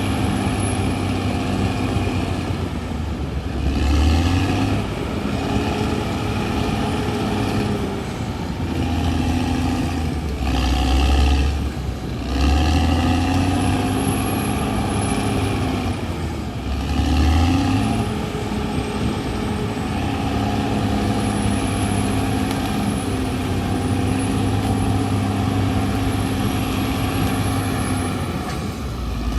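Caterpillar D6R XL bulldozer's diesel engine running under load, its pitch stepping up and down as it surges several times. A faint high whine rises and falls with it.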